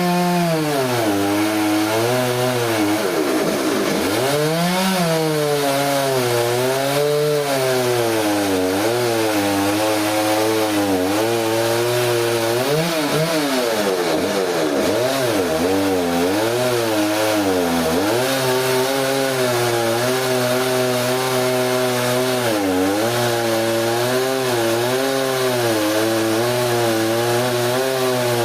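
Chainsaw cutting into a large log, the engine's pitch repeatedly sagging under load and picking back up.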